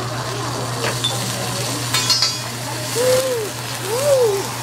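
Food sizzling on a teppanyaki griddle, with clinks of a metal spatula about one and two seconds in, as a stacked-onion volcano is set alight. Near the end come two short calls, each rising and falling in pitch, the second one louder.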